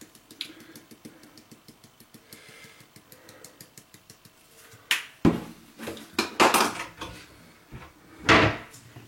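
Household handling clatter: a run of faint quick ticks, then several loud knocks and clunks of hard objects being set down or moved, the loudest about five, six and a half and eight and a half seconds in.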